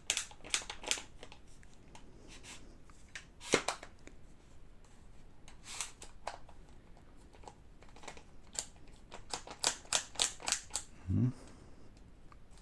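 Scattered clicks and rattles from an HK G28 airsoft rifle's adjustable stock being handled and tried out, with one sharp click about three and a half seconds in and a quick run of clicks near the end.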